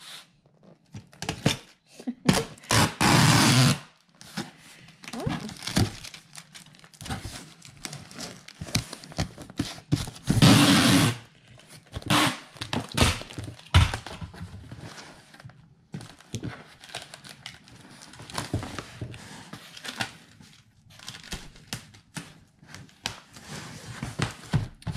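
Packing tape pulled off a handheld tape gun across a cardboard box, two long loud screeching strips about three and ten seconds in. Rustling, taps and thunks of the box and packing being handled fill the rest.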